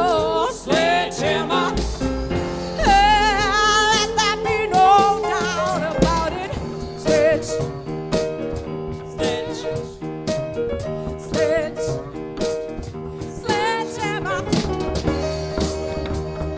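Live band performing a soul-blues song: a woman's lead vocal sings with vibrato for the first few seconds, then the band carries on instrumentally over a steady beat.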